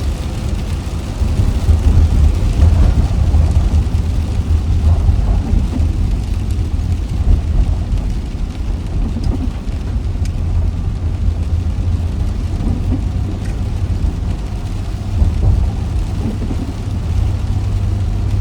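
A car driving in the rain: a steady low rumble from the road under an even hiss of rain.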